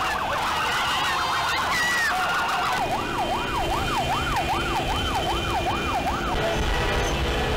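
Electronic siren wailing up and down, at first in a faster, tangled warble and then in an even rise and fall about two and a half times a second, over steady street noise. The siren stops about six seconds in, leaving a low rumble.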